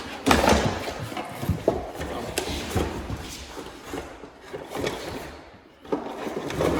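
Metal clicks and knocks with handling noise from a Leatherman Surge multitool being turned over and worked open by hand.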